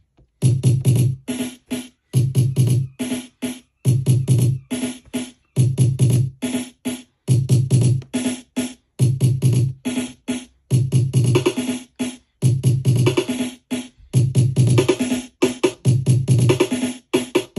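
Native Instruments Maschine+ playing a step-sequenced drum and bass style drum pattern: a strong low kick under bright hi-hats, looping about every 1.7 seconds with a brief drop-out at each repeat.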